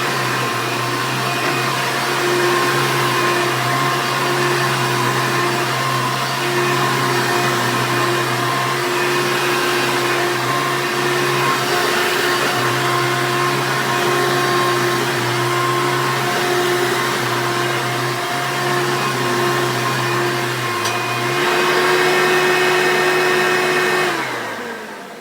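1994 Hoover Elite upright vacuum cleaner running loud, its motor giving a steady whine. About three-quarters of the way through, the pitch steps up slightly and it gets a little louder. Near the end it is switched off and the whine falls in pitch as the motor spins down.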